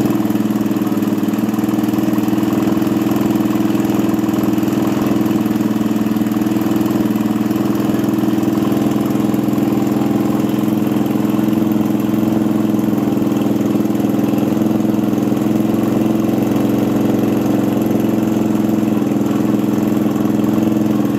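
Suzuki Thunder 125's air-cooled single-cylinder four-stroke engine, bored up with a 62 mm Satria FU piston, idling steadily.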